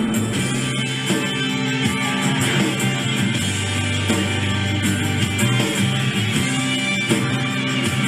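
Background music led by guitar, with a steady beat of changing bass notes.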